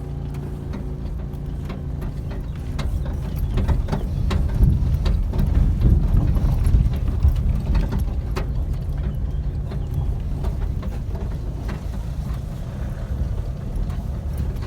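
Low rumble of a ride over rough ground, with irregular rattles and knocks from the vehicle's loose parts, heaviest in the middle.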